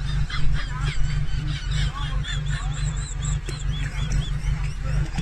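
Animal calls: a string of short, high chirping notes, with a regular run of about three a second in the middle, over a steady low rumble.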